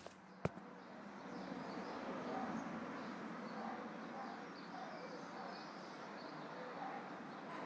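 One boot footstep on a concrete paving slab about half a second in. Then steady outdoor background hiss with faint bird chirps.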